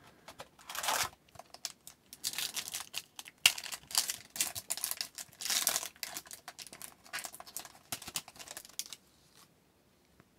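Foil wrapper of an Upper Deck hockey card pack crinkling and tearing as it is opened by hand, in an irregular run of crackling bursts.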